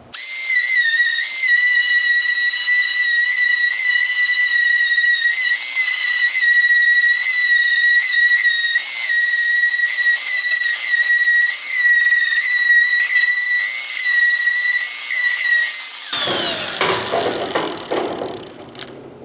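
A grinder running on the underside of a steel truck hood, a steady high whine that dips slightly in pitch whenever it bites. It is grinding the marked spots bare so the hood hinge base brackets can be tack welded on. About 16 seconds in it is switched off and winds down with a falling whine.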